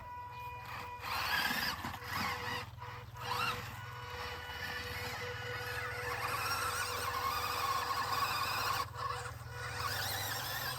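Small electric motor and drivetrain of a 1/24-scale RC crawler whining as it drives and climbs in sand, the pitch wavering with the throttle. It runs steadily from about four seconds in and dips near the end.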